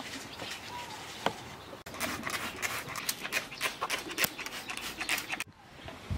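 Hand-pumped plastic spray bottle misting a towel in a quick run of spritzes, several a second, for about three and a half seconds. Before it, a towel is handled quietly, with a single click and faint bird chirps.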